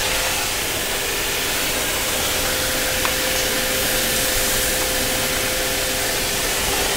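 Nozzle-less overhead mist hose spraying water under pressure to both sides as a fine fog: a steady, even hiss, with a faint steady hum underneath.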